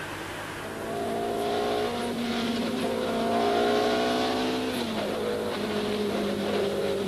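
Racing car engine, a steady pitched note that starts just under a second in and drops in pitch about five seconds in.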